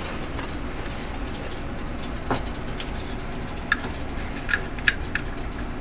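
A steady low rumble with a few short, sharp plastic clicks and taps scattered through it, from hands refitting wiring-harness connectors and fuse-box parts in the engine bay.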